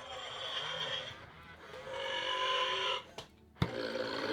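Two cartoon fart sound effects, buzzy and wavering, each about a second long, followed by a sharp click near the end and the start of another sound.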